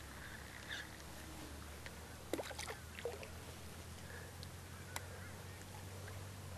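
Faint ambience on the water from a kayak: a few light knocks and small splashes, and short bird calls about two and a half seconds in, over a low steady hum.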